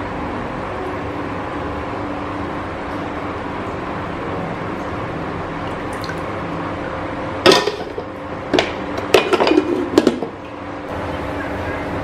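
Steady hiss from a gas stove burner under a frying pan as cooking oil is poured in. About seven and a half seconds in come several sharp clinks and knocks of kitchenware over two or three seconds.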